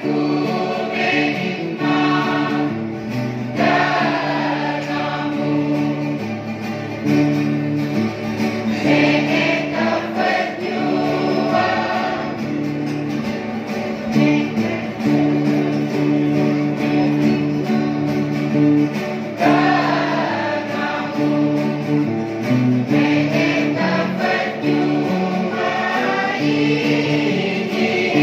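Large mixed church choir singing a Nicobarese song in unison, accompanied by several strummed acoustic guitars.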